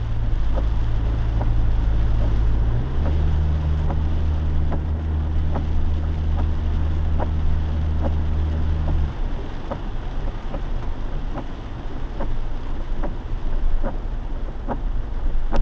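Lifted Jeep heard from inside the cabin, driving through deep floodwater: a steady low engine drone that steps up to a higher pitch about three seconds in and drops away around nine seconds, over a constant rush of tyres and water spray. Light ticks recur about every three quarters of a second.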